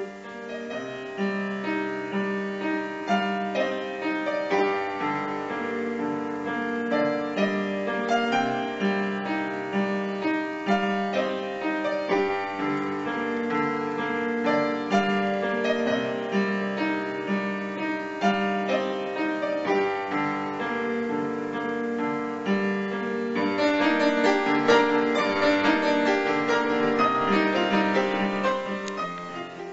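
Background piano music, slow and gentle, with held notes over a steady repeating bass line; it grows fuller and a little louder for the last several seconds.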